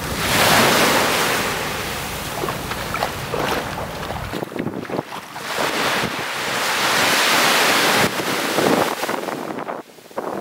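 Small waves breaking and washing up a sandy beach, the surf hiss swelling twice; the second swell cuts off suddenly near the end. Wind rumbles on the microphone during the first half.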